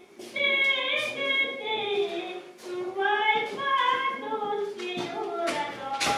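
A woman's solo voice singing a Rumeic (Azov Greek) folk song, with long held notes that slide in pitch, played back from a recording.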